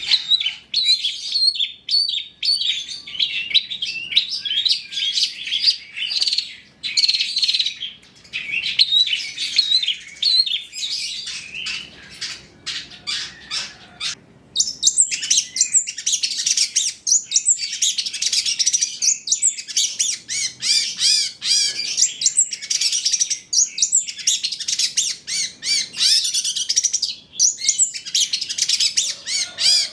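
Long-tailed shrike (cendet) singing a fast, unbroken stream of varied chirps and twitters, a training song full of mimicked phrases of other birds, meant to lure young shrikes into singing. About halfway through the song moves higher in pitch and gets denser.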